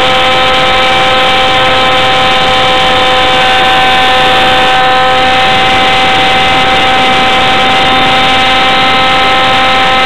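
RC model jet's motor heard from a camera mounted on the plane, holding a steady whine at one pitch, with wind rushing over the airframe.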